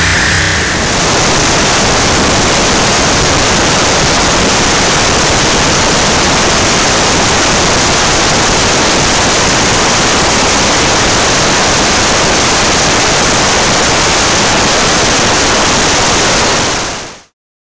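Loud, steady rushing hiss, even across all pitches with no tone or beat in it, fading out near the end.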